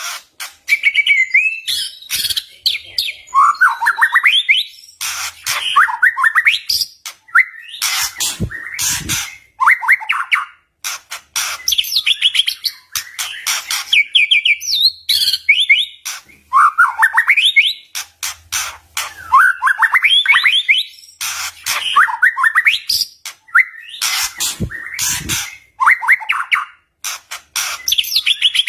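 White-rumped shama (murai batu) singing loudly in an agitated, fighting mood. Its song is repeated rising whistled phrases, alternating with harsh, rapid crackling notes.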